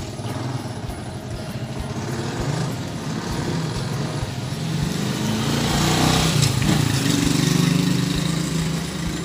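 A motor engine runs throughout with a steady low hum, growing louder around six seconds in before easing off.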